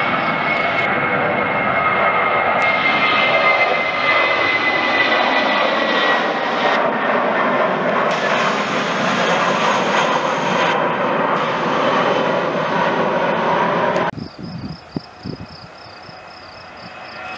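Jet engines of a Wizz Air Airbus A320-family airliner at climb power after take-off: loud, steady jet noise with a whine slowly falling in pitch. About fourteen seconds in the sound cuts off abruptly to the much fainter sound of a distant airliner taking off.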